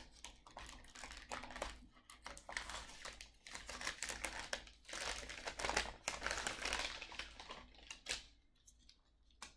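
Wrapping paper crinkling and rustling as a small gift is unwrapped by hand, with irregular small clicks and taps; it stops about eight seconds in.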